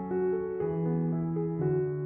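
Gentle background piano music: a slow melody of held notes, a new note every fraction of a second.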